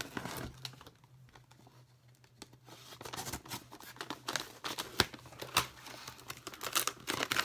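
Parcel packaging being handled and opened: crinkling, rustling and tearing of wrapping with irregular small knocks and clicks, busier in the second half. A faint steady low hum underneath.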